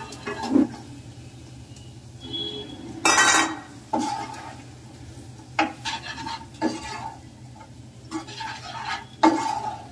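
Spatula scraping and knocking against a frying pan as food is stirred, in short strokes about a second apart, with one longer, louder scrape about three seconds in. Faint sizzling under the strokes.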